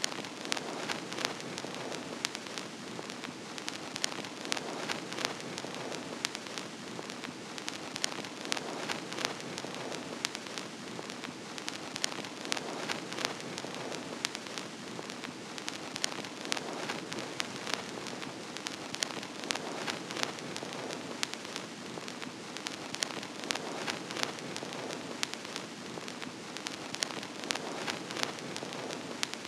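Vinyl record surface noise: a steady hiss scattered with irregular clicks and pops.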